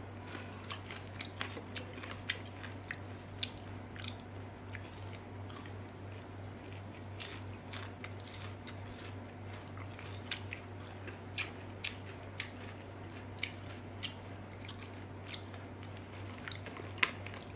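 Crunching and chewing of crispy fried banana-stem chips close to the microphone, with irregular sharp crackles throughout and one loud crunch near the end. A steady low hum runs underneath.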